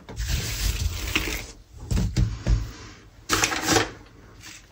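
Byrek dough being rolled out with a long thin wooden rolling pin (oklava): scraping, rustling rolling strokes over the floured work surface, with a few dull knocks near the middle.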